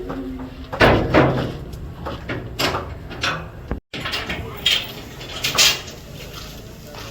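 Irregular knocks and clattering, a few sharper strikes among them, cutting out for an instant about four seconds in.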